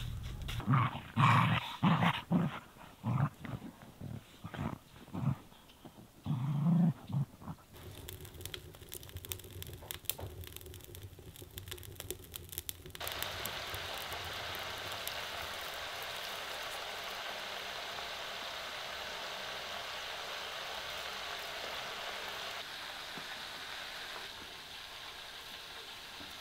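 A dog barking in a string of short barks over the first several seconds, then light clicking and a steady soft hiss.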